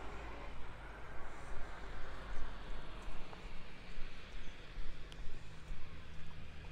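Footsteps at a walking pace, about two a second, over a steady low outdoor rumble.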